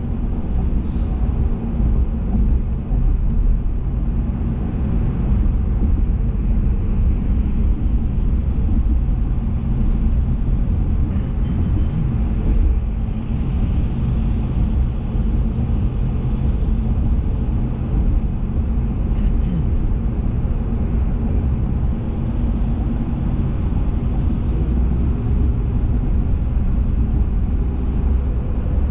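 Vehicle on the move: a steady, unbroken low engine and road rumble.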